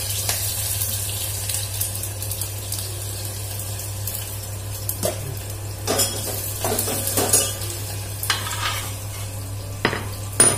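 Tempering spices sizzling in a small steel pot on a gas stove while a metal spoon stirs, clinking against the pot several times in the second half. A steady low hum runs underneath.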